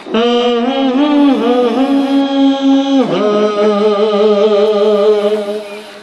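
A man singing unaccompanied in two long phrases of held notes, the second starting about three seconds in.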